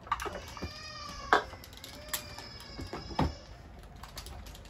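A hammer knocking a 2x4 block into place between attic rafters: three sharp blows about a second apart. Under them runs a long, high squeal whose pitch wavers and glides.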